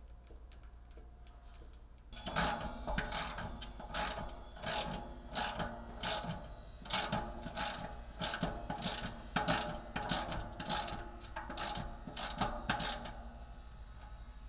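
Hand ratchet and socket driving a lag bolt into a wood backboard, clicking in a long run of strokes about one and a half a second. It starts about two seconds in and stops near the end.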